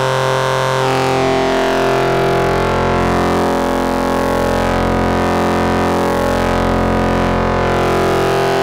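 Modular synthesizer drone through a Synthetic Sound Labs Serge Triple Waveshaper (Model 1050): one low held note rich in overtones. Its tone colour shifts as the waveshaper is adjusted by hand.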